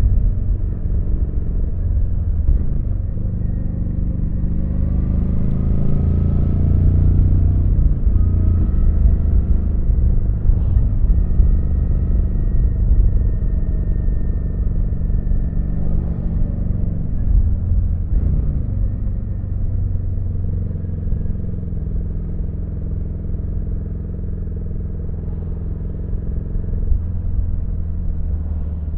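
Kawasaki VN900 (Vulcan 900) V-twin engine running on the road, its note rising and falling with the throttle and gear changes several times.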